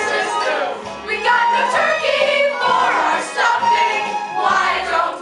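An ensemble cast singing a stage-musical chorus number together over an accompaniment with a bass line.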